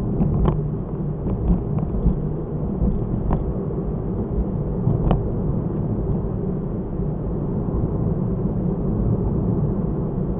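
Car driving, recorded by a dashcam microphone: a steady low rumble of engine and road noise, with three faint clicks.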